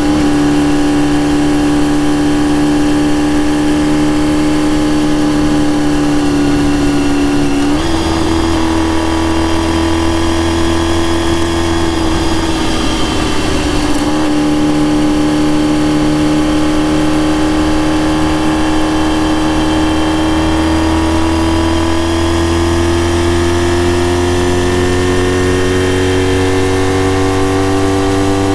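Honda RVF400 (NC35) V4 with gear-driven cams running through a TSR slip-on silencer under riding, heard from a microphone inside the rear seat. The engine note steps up in pitch about eight seconds in, dips and picks up again around fourteen seconds, then climbs steadily toward the end as the bike accelerates.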